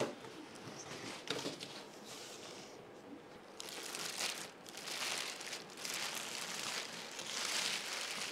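Clear plastic bag crinkling in several waves as it is pulled down off a 3D printer, starting about three and a half seconds in, after a couple of soft knocks from the cardboard box sleeve being lifted away.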